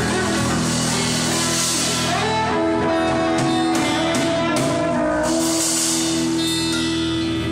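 Music with guitar and drums: long held notes over a steady beat of cymbal strokes.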